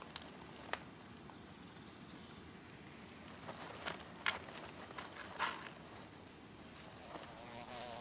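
Faint outdoor ambience of a steady hiss, with a few soft scrapes and rustles and a fly buzzing near the end.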